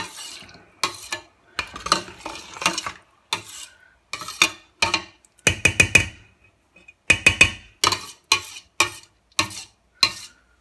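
Metal ladle stirring rice and peas in freshly added water in a steel pot, knocking and scraping against the pot's sides in a string of short strokes, bunched most densely around the middle.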